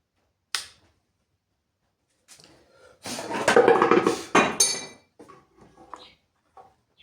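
A sharp click, then a couple of seconds of hard clattering and rattling, like metal objects being handled and knocked together, followed by a few lighter knocks.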